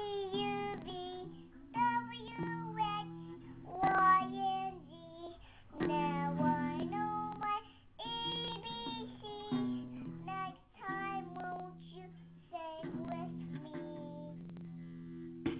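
A young child singing a song, with the open strings of an acoustic guitar strummed now and then underneath, each strum ringing on.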